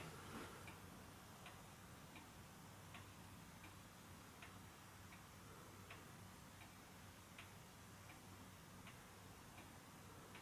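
Two-weight Vienna regulator wall clock ticking faintly and evenly, its pendulum beat alternating a stronger and a weaker tick about three-quarters of a second apart.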